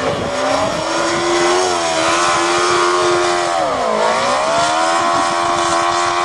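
Yamaha 650 motorcycle engine in a dune buggy running hard at high revs, near redline; the pitch dips briefly about four seconds in, then climbs back and holds high.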